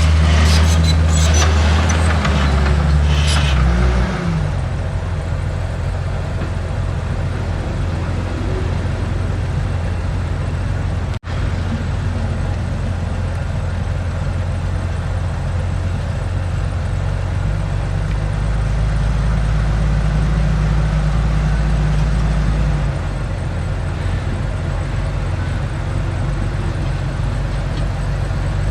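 Heavy diesel construction machinery running steadily with a deep engine note that rises and falls with the load. There are squeaks and clatter in the first few seconds and a brief break in the sound about 11 seconds in.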